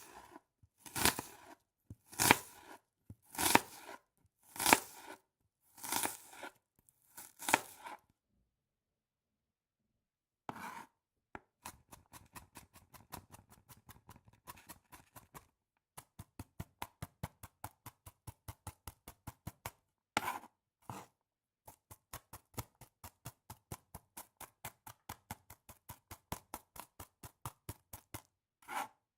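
Knife chopping an onion: about seven slow slicing strokes roughly a second apart, then a pause of a couple of seconds. After that comes fast, even chopping at about five strokes a second, broken by a few heavier single cuts.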